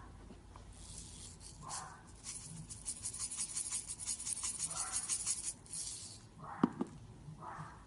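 Slime being squeezed and worked by hand: a rapid crackle of tiny pops from about one to six seconds in, with a few short squelches.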